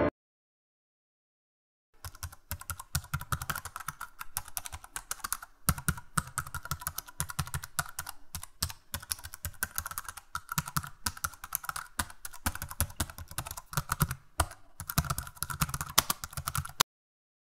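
Computer keyboard typing sound effect: fast, irregular key clicks that start about two seconds in and stop abruptly near the end.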